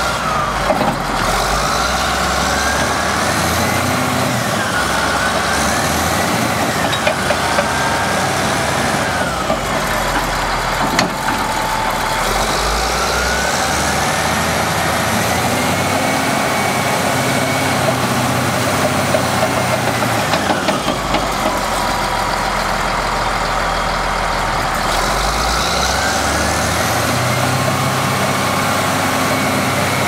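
Caterpillar D7R crawler bulldozer's diesel engine revving up and down several times as the machine tracks and turns, with a high whine that rises and falls with the revs over a steady low rumble. A few sharp clanks come through in the middle.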